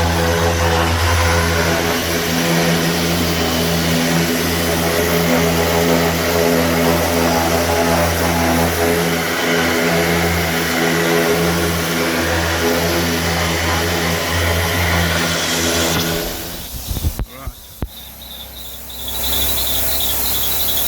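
Spray-painting air equipment running: a steady machine hum from the compressor under the hiss of a spray gun laying on primer. It cuts out about sixteen seconds in, with a few knocks. A thinner hiss with a high whistle starts near the end.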